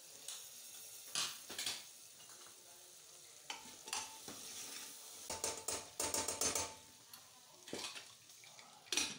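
Metal spoon stirring and scraping diced vegetables sautéing in ghee in an aluminium pressure cooker, over a steady sizzle. Repeated scrapes and clinks against the pot, busiest about five to seven seconds in, and a sharp metal clank near the end.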